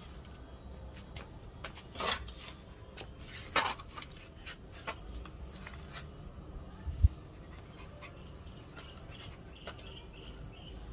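Soft grass broom (walis tambo) sweeping and brushing across a concrete floor, with a dustpan set down on it, while a puppy plays at the bristles. Short sharp sounds about 2 and 3.5 seconds in, scattered small clicks, and a dull thump near 7 seconds.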